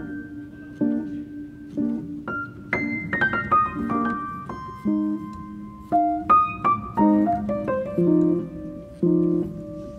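Piano music: single melody notes over repeated low chords, with a quick run of notes about three seconds in.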